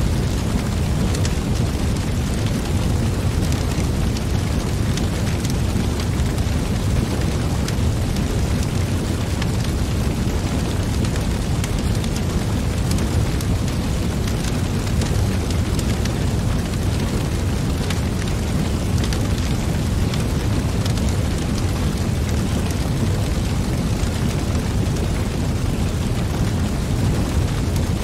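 Wood logs burning in a metal fire pit: a steady low rush of flame with frequent small crackles and pops.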